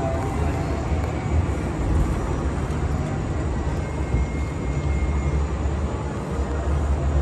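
Wind buffeting a phone microphone, a steady low rumble with a lighter rush above it.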